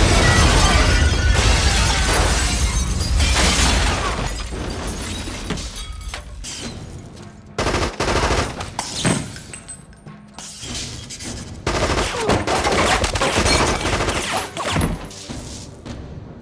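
Film gunfight sound effects: a loud, dense barrage of automatic gunfire with bullet impacts and debris, heaviest in the first few seconds. It fades, then comes back in shorter bursts around eight seconds and again from about twelve to fifteen seconds, with film score underneath.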